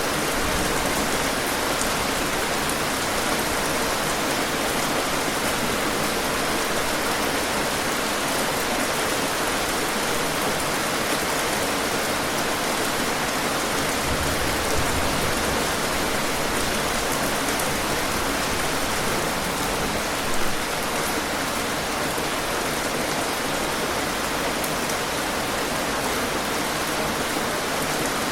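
Steady heavy rain falling, a dense even hiss of drops on surfaces, with one brief louder patter about twenty seconds in.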